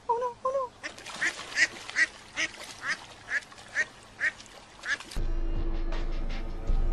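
Hen duck quacking: a few soft calls, then a run of about ten loud quacks, roughly two to three a second. Music starts suddenly about five seconds in.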